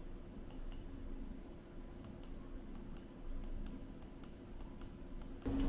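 Faint, irregular clicking of a computer being operated, about a dozen small ticks over a few seconds, over a low steady hum.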